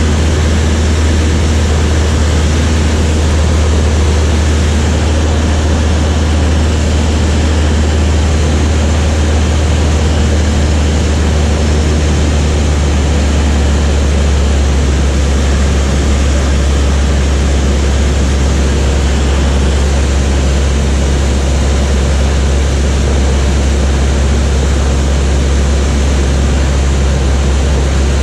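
Light propeller aircraft's piston engine droning steadily and loudly, with a slight shift in its note about halfway through.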